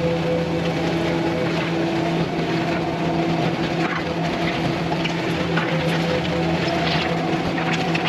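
Skid steer's diesel engine running steadily under load while it pushes a box grader through the dirt, with a few short scrapes and clicks from the grader working the soil.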